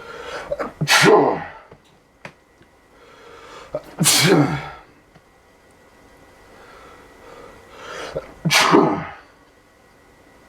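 A person sneezing three times, about three to four seconds apart, each sneeze preceded by a drawn-in breath. Allergy sneezes, which he puts down to dust, pollen or pepper.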